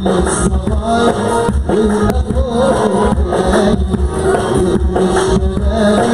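Arabic wedding band music: a steady, repeating beat under a wavering melody and a singing voice.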